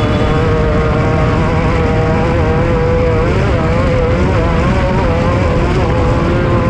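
Off-road race vehicle's engine running hard and steady, its pitch wavering and dipping briefly in the middle, over a heavy low rumble.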